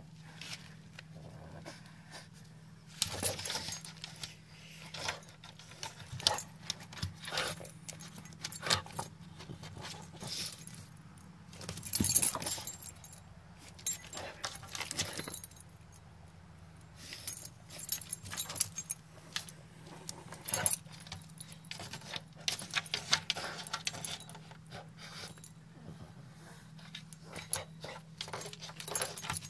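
Irregular metallic jingling and scraping as a French bulldog in a metal-studded collar noses and paws at the base of a pipe, over a low steady hum.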